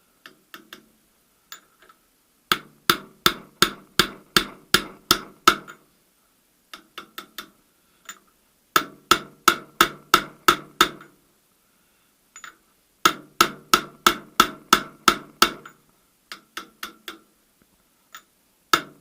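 Hammer blows driving the fifth-gear synchronizer hub of a VAZ manual gearbox evenly onto its shaft: three runs of sharp metallic blows, about three a second, each with a ringing tone. Lighter taps fall between the runs.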